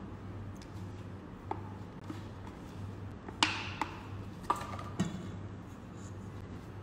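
Light knocks and taps of a silicone spatula and a small bowl against a stainless steel mixing bowl as melted butter is scraped in: about five taps, the loudest about halfway, one leaving a brief metallic ring. A steady low hum runs underneath.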